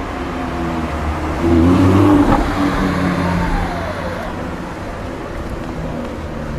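Lamborghini Gallardo LP560-4's V10 engine running near idle, with a short rise in revs about a second and a half in that falls back and settles to a steady note.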